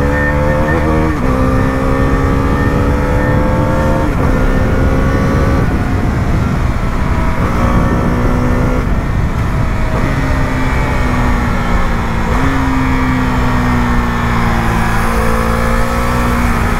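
A Husqvarna 250's single-cylinder engine running through an aftermarket R1M-style exhaust while being ridden. The note climbs and then drops with upshifts about one and four seconds in, and holds steady at cruise. It jumps up with downshifts about ten and twelve seconds in, falling away after each as the bike slows.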